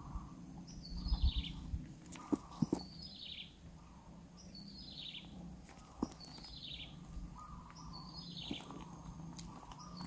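Kingfisher nestlings calling in the nest cavity: a short, high call sliding down in pitch, repeated five times at even intervals of a little under two seconds. A few soft knocks are mixed in.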